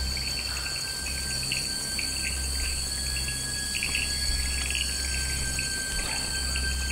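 Tropical forest insect chorus: several steady high-pitched insect drones with irregular chirping calls over them, and a low rumble underneath.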